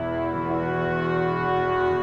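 Orchestral television score music: sustained brass chords, swelling slightly.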